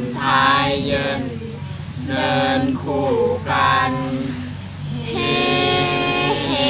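A group of young male and female voices chanting Thai royal barge procession verses (kap he ruea) unaccompanied, in drawn-out, wavering phrases. From about five seconds in, several voices hold the line together.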